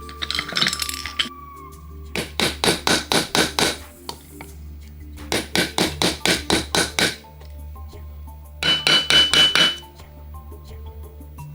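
Three quick runs of short, sharp strokes or taps from hand work on the project, about six a second, over light background music.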